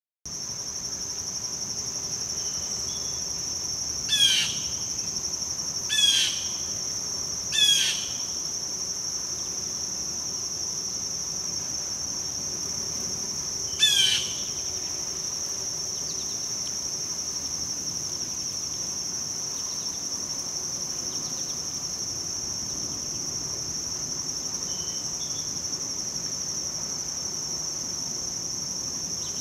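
Insects trilling in a steady, unbroken, high-pitched chorus. A bird breaks in with four short, sharp calls that sweep down in pitch, three close together in the first eight seconds and one more near the middle.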